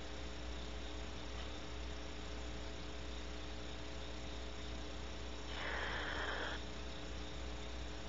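Barn owl giving one harsh, hissing call lasting about a second, a little past halfway, over a steady electrical hum from the camera's microphone.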